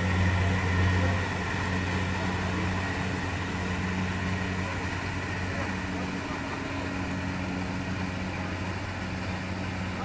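Kubota combine harvester's diesel engine running steadily as the machine works through standing rice, a constant low drone. The lowest hum eases off a little about a second in.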